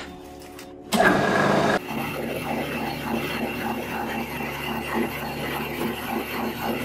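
Metal lathe turning a steel bolt workpiece, the spindle running while the cutting tool takes a cut. A loud harsh burst comes about a second in, then a steady cutting noise that cuts off suddenly at the end.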